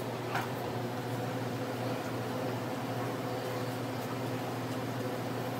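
Automatic pancake machine running with a steady electric hum while it cooks and dispenses a pancake.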